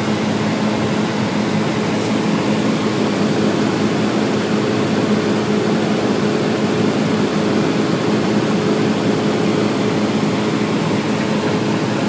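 Cessna 172's piston engine and propeller droning steadily, heard from inside the cabin, with an even hiss of rushing air over it.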